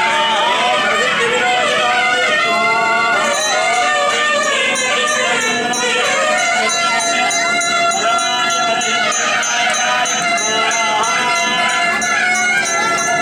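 Traditional devotional music with a wavering melody that runs without a break.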